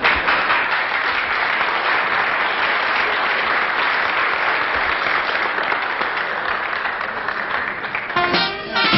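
Audience applauding steadily after a speech. About eight seconds in, brass band music comes in over it.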